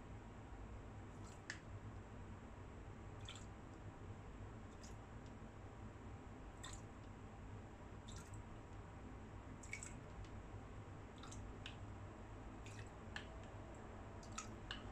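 Faint, scattered drip-like ticks, roughly one a second, over a low steady hum, as crushed green cardamom pods are dropped into a pot of sugar and water.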